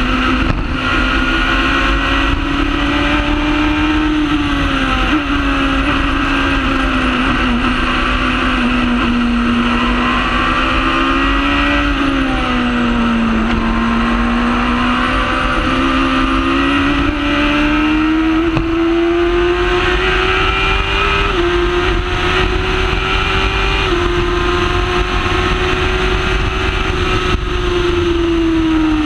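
Honda Hornet motorcycle inline-four engine of a Formula Predator's single-seater running hard at racing speed, heard onboard. Its pitch sags and climbs again twice and steps up or down a few times as the car goes through corners and along the straight.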